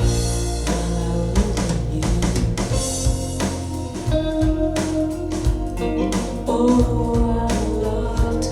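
Music playback: a guitar-led, bluesy track with a drum kit keeping a steady beat.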